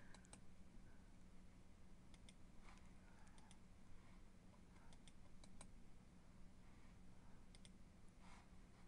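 Near silence with faint, scattered computer clicks at irregular spacing, some in quick pairs, over a low steady hum.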